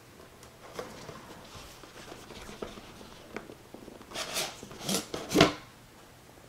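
Router's product box being handled: faint rustling, then a few louder scraping rubs about four to five and a half seconds in as the inner box slides out of its outer sleeve.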